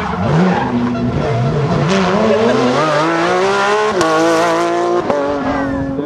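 Porsche 911 GT3 rally car's flat-six engine revving hard through a corner slide, the tyres skidding. The pitch climbs, then drops with a sharp crack at each upshift, about four and five seconds in.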